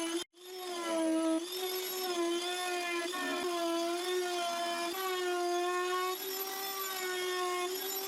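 Table-mounted router with a flush trim bit running, a steady high-pitched whine whose pitch sags slightly at moments as the bit cuts along the wood. It cuts out for an instant just after the start, then carries on.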